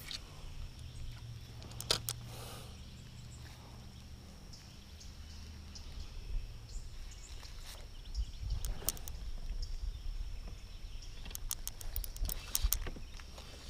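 Quiet outdoor ambience with a low wind rumble, broken by scattered light clicks and taps, several in quick succession near the end.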